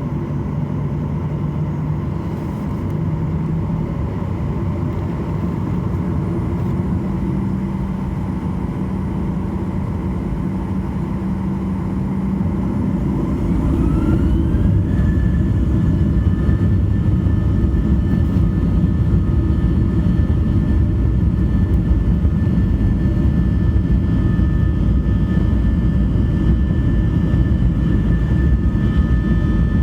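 Boeing 737-800's CFM56-7B jet engines heard from inside the cabin, running with a steady low rumble. About halfway through they spool up: a whine rises in pitch, then holds at a higher, steady note as the sound grows louder, meaning thrust has been advanced.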